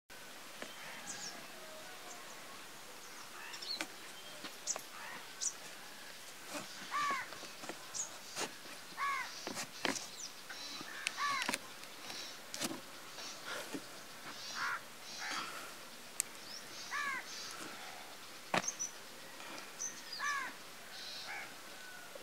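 A crow cawing repeatedly, about five single caws a couple of seconds apart, over small birds chirping. A few sharp clicks come near the middle.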